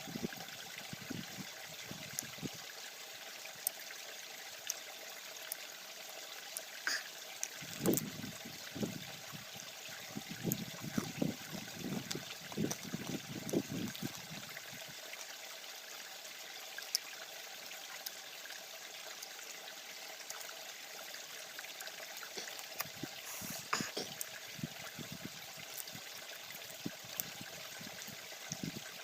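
Small stream babbling steadily, with irregular low thuds in the first couple of seconds and again through the middle stretch.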